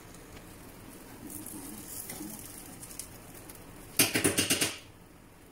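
Metal ladle scraping and knocking against a small nonstick frying pan as a pancake is worked loose for flipping. There is faint scraping around the middle, then a quick clattering run of about eight scrapes near the end.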